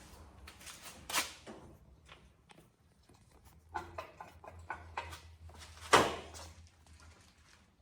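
Scattered clicks and knocks of hand tools working on a rubber hose clamp as it is tightened on turbo cooler piping. The two loudest are sharp knocks, one about a second in and one about six seconds in.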